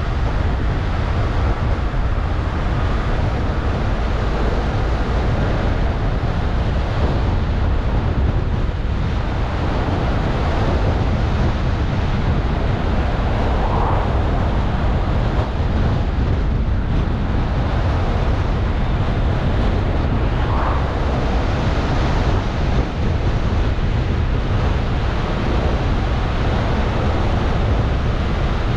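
Steady road noise from a moving car: a constant rumble of tyres and wind.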